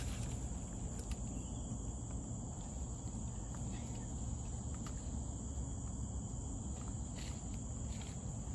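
A steady, high-pitched insect chorus over a steady low rumble, with a few faint clicks.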